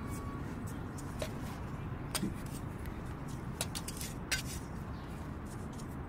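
Metal garden trowel scooping and pressing potting soil into a plastic pot: a few sharp clicks and scrapes, the first about two seconds in and more around four seconds, over a steady low rumble.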